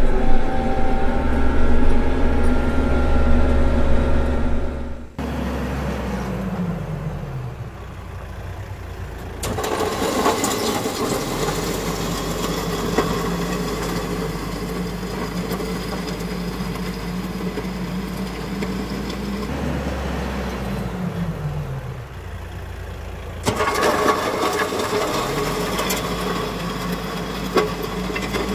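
Kioti RX7320 tractor's diesel engine running as it works, its engine speed dropping once and then climbing back up twice later on.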